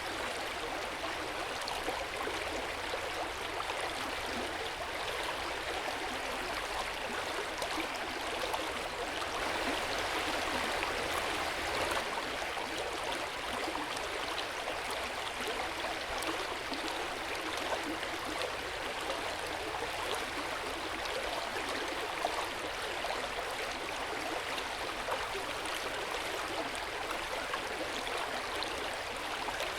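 Hot spring water flowing steadily into an open-air bath, a continuous unbroken rush that swells slightly around ten seconds in.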